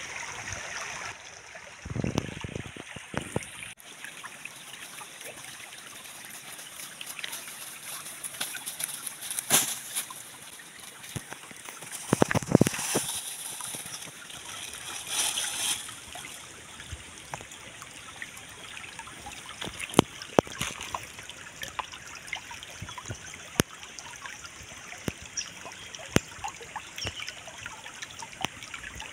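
Shallow stream trickling over rocks, with scattered sharp clicks and a few louder brief noises partway through.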